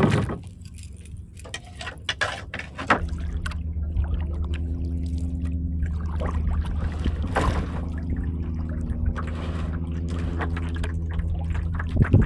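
A splash as a small fish drops back into the water, then a few light clicks of tackle. About three seconds in, a small boat motor comes on and runs steadily at low speed, pushing the boat along.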